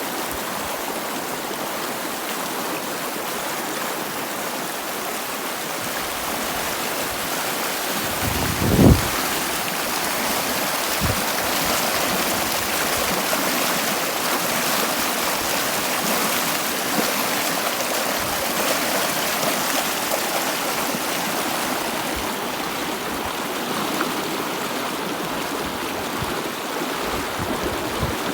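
Stream water flowing steadily, a continuous rushing and burbling. About nine seconds in there is a brief louder low thump, with a smaller one a couple of seconds later.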